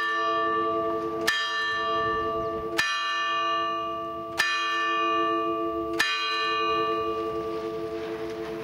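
A single village bell in an open steel-lattice bell tower tolling, struck about every second and a half, its lower tones pulsing slightly as they ring. The last stroke comes about six seconds in and the ring then fades away.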